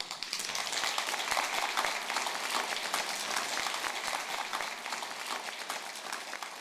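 Audience applauding: many hands clapping in a dense patter that slowly dies down.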